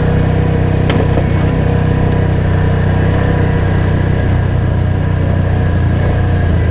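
ATV engine running steadily, with a few light clicks in the first couple of seconds.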